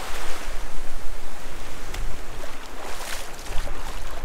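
Small ocean waves washing up and foaming on the sand in shallow surf, with wind rumbling on the microphone.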